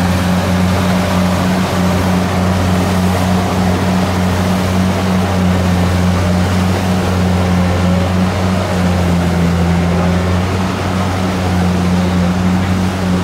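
Kubota DC70 rice combine harvester's diesel engine running steadily, a loud constant hum that holds one pitch throughout.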